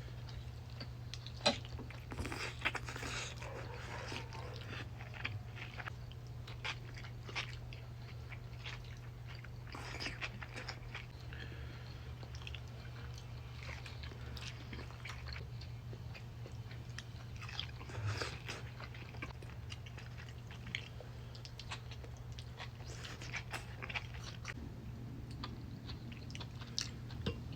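Close-miked chewing and biting of a steak and asparagus meal: soft wet mouth sounds with scattered small crunches and clicks, over a steady low hum.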